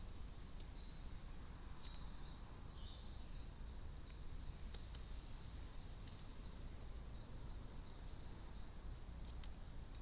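Faint birds chirping in the background over a low, steady outdoor rumble, with a few sharp clicks as a common blackbird pecks seed from a plastic feeding tray.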